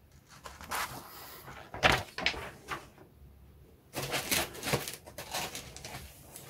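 Handling sounds of a plastic model kit's paper instruction sheet and parts: soft rustles and a few light knocks, busiest about four to five seconds in.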